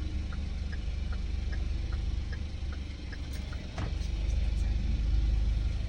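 Car interior while pulling out: a steady low engine and road rumble, with an evenly spaced light ticking about two and a half times a second, like a turn-signal indicator. One sharper click comes a little under four seconds in.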